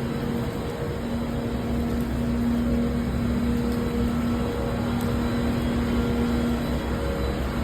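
A vehicle running with a steady humming tone over a low rumble.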